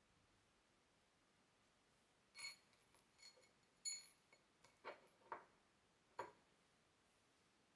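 Small faceted beads clinking against each other and a ceramic dish as fingers pick through them: about seven soft, bright clinks in a little run near the middle, otherwise near silence.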